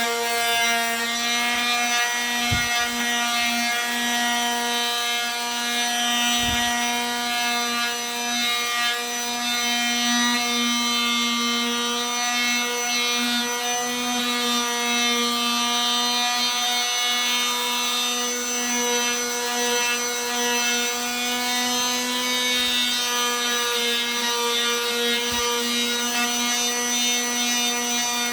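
Oscillating multi-tool running steadily with an even, high buzzing tone, its pad working against wood, as when sanding into corners.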